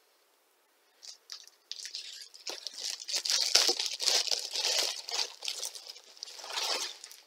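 Plastic wrap being torn and peeled off a cardboard box, crinkling and crackling. It starts about a second in, is loudest in the middle, and ends with a last burst of crinkling.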